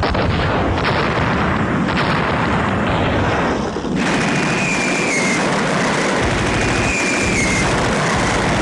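Battle sound effects: a dense din of explosions and gunfire, with heavy strikes about once a second at first. About four seconds in it grows brighter, and a high whistle twice slides down in pitch.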